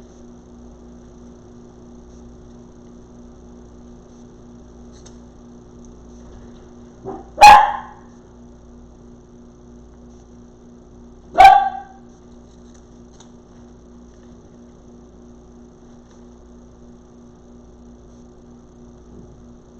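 A pet dog barking twice, about four seconds apart, the first bark led by a short softer one. A steady low hum runs underneath.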